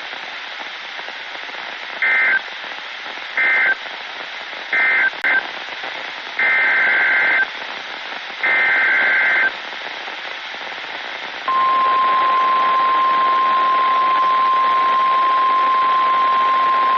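NOAA Weather Radio emergency alert signalling over steady static hiss. Several short bursts of SAME digital data tones sound as harsh two-tone warbles, followed by two longer bursts. About two-thirds through, the steady single-pitch 1050 Hz warning alarm tone begins and holds, announcing a new warning.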